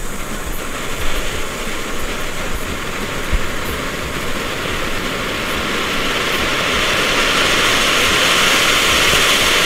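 Firework ground fountain (volcano) hissing steadily as it sprays sparks, growing louder over the last few seconds.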